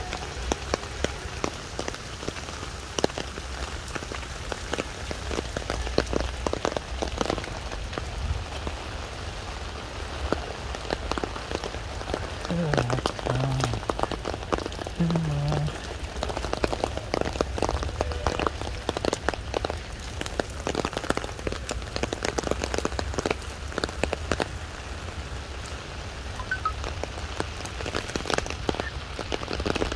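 Steady heavy rain falling on wet stone paving, an even hiss with many sharp drop ticks close by.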